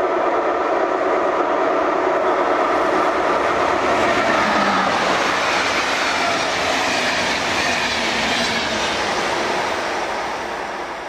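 A passenger train hauled by an HŽ series 1142 electric locomotive running past at speed, a loud steady rolling of steel wheels on rail. There is a hum of several steady tones in the first few seconds while the locomotive goes by, then the broader rolling of the coaches, which begins to fade near the end as the train draws away.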